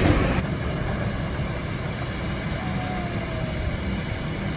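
Kobelco SK200 hydraulic excavator's diesel engine running with a steady low rumble. It drops to a lower, even level about half a second in.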